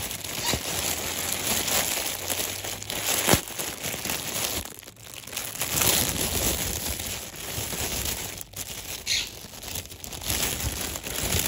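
Clear plastic packaging bag crinkling and rustling continuously as a plush toy is pulled out of it, with sharper crackles, the loudest about three seconds in.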